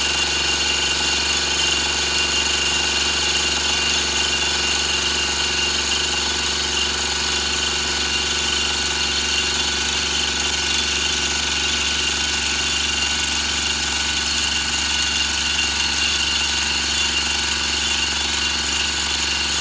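Light-duty milling machine running steadily, its fly cutter taking a light facing cut of two or three thousandths across a metal workpiece. It makes an even hum with several steady high tones over it.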